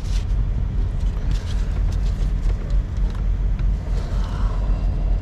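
Steady low engine rumble of an idling vehicle, with a scatter of short light clicks and knocks over it in the first few seconds.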